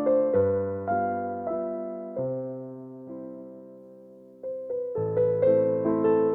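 Gentle piano background music: single notes and chords that ring out and decay, thinning to one fading chord in the middle, then picking up with quicker notes about four and a half seconds in.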